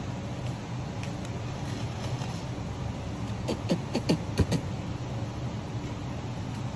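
Steady low hum of a shop interior, with a short cluster of knocks and clinks about halfway through as tall aluminium beverage cans are handled and set down on a wooden counter.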